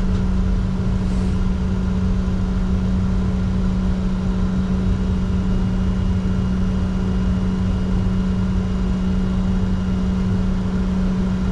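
Steady cockpit noise of a Bombardier Challenger 604 taxiing with its two GE CF34 turbofans at idle: a constant low hum over an even rumble, unchanging throughout.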